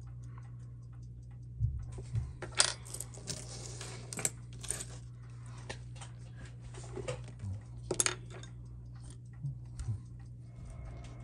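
Light metallic clicks and clinks as a Seiko 6139 chronograph on its steel link bracelet is handled on a bench mat with tweezers and fingers; the loudest clatters come about two and a half seconds in and again around eight seconds. A steady low hum runs underneath.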